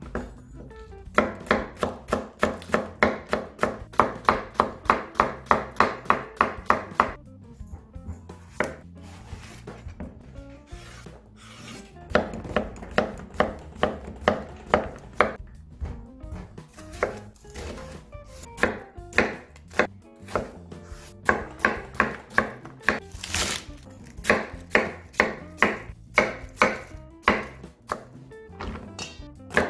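Kitchen knife chopping vegetables (zucchini, then cabbage) on a wooden cutting board, in quick even runs of about four strokes a second with short pauses between runs.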